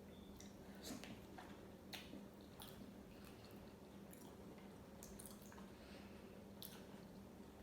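Faint wet eating sounds: scattered soft squishes and mouth clicks of someone chewing food close to the microphone, over a low steady hum.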